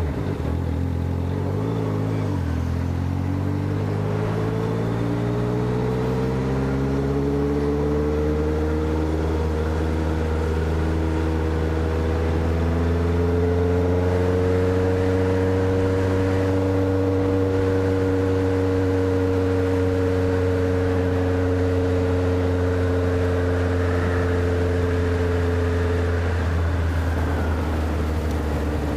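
Motorcycle engine and exhaust under way, one steady note whose pitch climbs gradually over the first dozen seconds, holds at a constant cruise, then drops near the end as the bike eases off.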